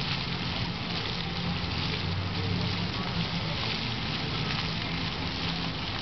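Ground jets of a splash-pad fountain spraying up and water spattering onto the wet pavement: a steady hiss of splashing water.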